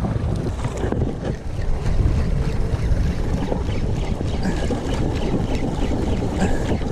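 Wind buffeting the microphone, with sea water lapping against a small boat's hull: a steady low rumble.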